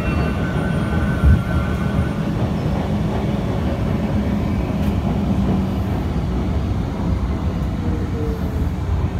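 MTR M-Train on the Disneyland Resort Line heard from inside the carriage: a steady low rumble of the train running as it pulls in along the station platform. There is a single thump about a second in, and a faint falling whine near the end as it slows.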